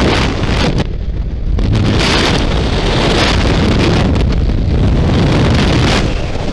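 Loud, gusty wind buffeting the camera's microphone, which in freefall comes from the rush of air past the falling camera; it eases briefly about a second in, then rises again.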